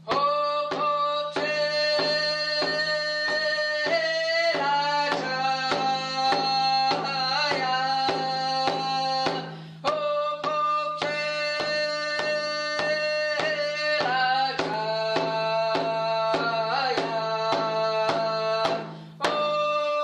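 A woman sings a Squamish song over a steady drumbeat of about three strikes a second, in long held phrases with brief pauses about halfway through and near the end.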